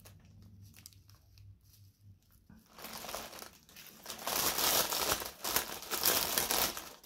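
Clear plastic bag crinkling as hands rummage through it among small zip bags of diamond-painting drills. Faint handling at first, turning into loud, continuous rustling about three seconds in.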